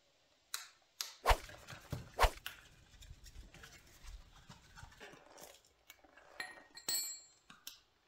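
Metal paint tins and a plastic mixing cup being handled and set down while paint is mixed: a run of knocks and clunks, two of them louder, with a short ringing metallic clink near the end.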